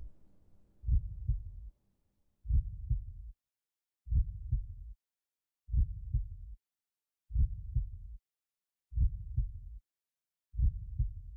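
Slow heartbeat sound effect: a low double thump, lub-dub, repeating evenly about every one and a half seconds.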